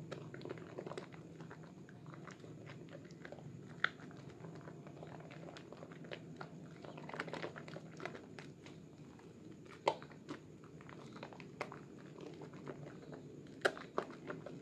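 Hands squeezing and kneading a wet, foam-covered bar of Sehat red soap in a basin of soapy water: continuous squelching and crackling of thick lather, with a few sharper louder pops.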